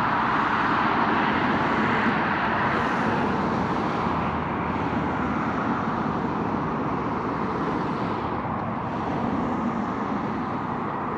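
Road traffic noise: a steady rush of passing vehicles that slowly fades.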